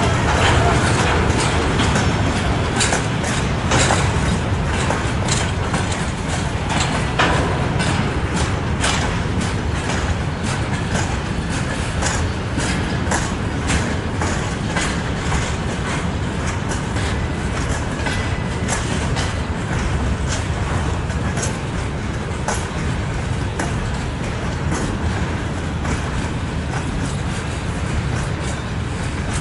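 Freight train of covered hopper wagons rolling past: a steady rumble of steel wheels on the rails, with a run of sharp clickety-clack clicks from the wheelsets.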